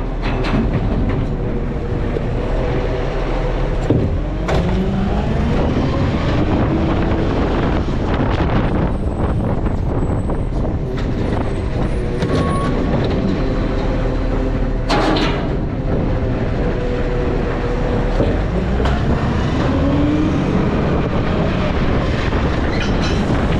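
Garbage truck's diesel engine running, its revs rising twice, with clanks and a short air hiss about fifteen seconds in.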